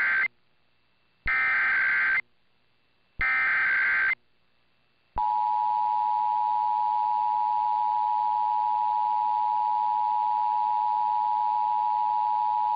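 Emergency Alert System SAME header: three harsh data bursts of about a second each, a second apart, the first already ending as the sound begins. About five seconds in the steady two-tone EAS attention signal starts and holds, announcing the start of an alert, here a required monthly test.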